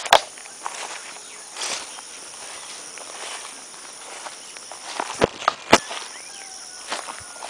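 Footsteps through grass and brush on a dirt path, over a steady high-pitched insect drone. Sharp clicks come at the start and twice about five seconds in.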